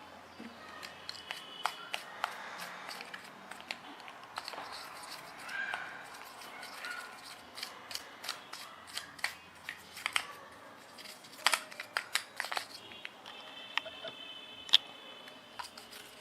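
Small clicks and rubbing from handling a camera and its lens cap as the cap is wiped and fitted, irregular throughout, with a cluster of sharper clicks about two-thirds of the way in.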